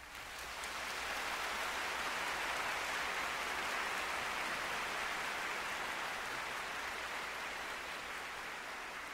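A steady hiss of noise that swells in over the first second and slowly fades.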